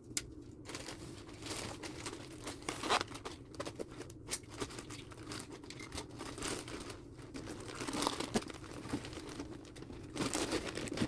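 Paper pet bedding being crinkled, torn and broken up by hand, with irregular rustling and crackling.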